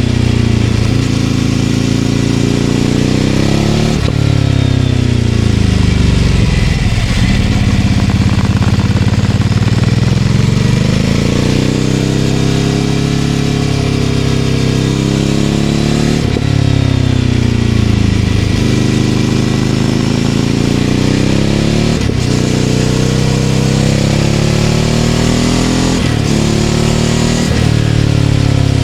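Ducati Scrambler 800's air-cooled L-twin engine through a Leovince LV-10 exhaust, under way on the road. The engine note drops and climbs again several times, with short breaks in the sound as it slows into corners and pulls out of them.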